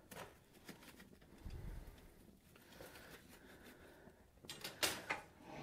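Quiet blacksmith's shop: faint scattered clicks and knocks, then a few sharper metallic clicks near the end, from tongs and hot steel being handled at the forge.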